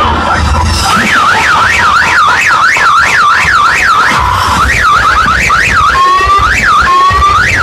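An electronic siren effect blasted through a car sound system. A wailing tone sweeps up and down about two to three times a second, breaks into quicker yelps around five seconds in, and changes to repeated rising whoops near the end, over a low bass rumble.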